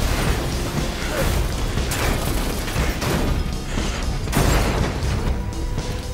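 Parked cars exploding one after another, with heavy booms about two and four seconds in and fire burning between them, over an orchestral action score.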